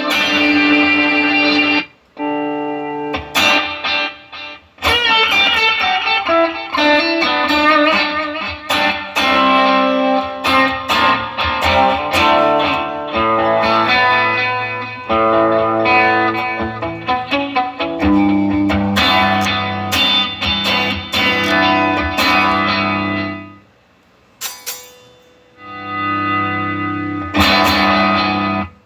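Electric guitar played through a Fractal FM3 amp-modelling processor, picked notes and chords with a few short breaks and a longer pause near the end. The unit is passing sound again after its power supply board was replaced.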